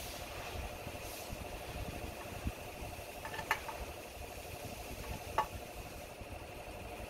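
A motor running steadily in the workshop background with a fast, even pulse. Over it, two sharp metallic clinks, about halfway and near the end, from a socket on an extension bar working the bolts of an engine oil cooler cover.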